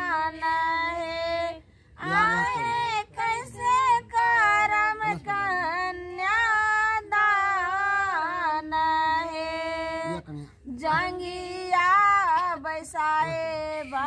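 A high-pitched female voice singing a slow song of long held, wavering notes, with little or no instrumental backing. The singing breaks off briefly about one and a half seconds in and again about ten and a half seconds in.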